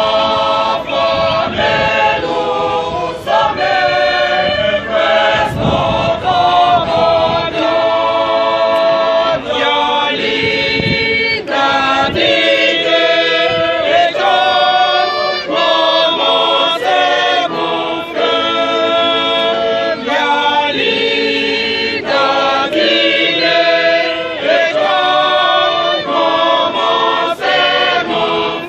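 A choir of women singing a hymn together in unison, unaccompanied, phrase after phrase without a break.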